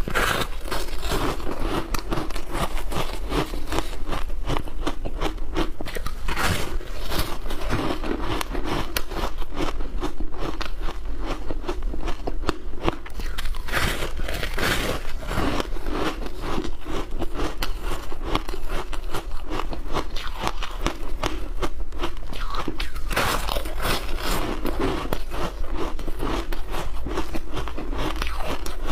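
Ice being bitten and chewed, a dense run of crisp crunches close to the microphone, with louder bites now and then.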